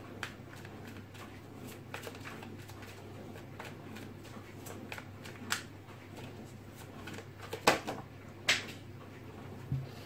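A deck of tarot cards being shuffled by hand: a run of soft card riffles and taps, with sharper card snaps about five and a half, seven and a half and eight and a half seconds in.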